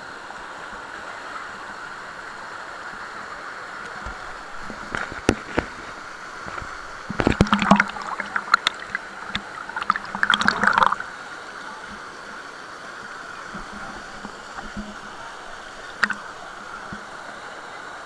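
Steady rush of running water, with louder irregular bursts of sound about seven and ten seconds in.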